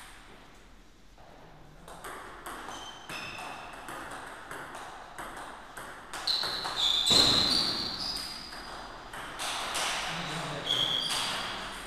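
A table tennis rally: the ball clicks off the paddles and the table in quick succession, each hit with a short, high ring. The loudest hits come about seven seconds in.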